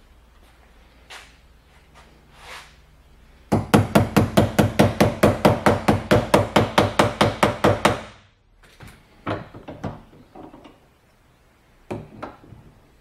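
Rapid, even hammer tapping on metal, about seven strikes a second for roughly four and a half seconds, followed by a few scattered knocks.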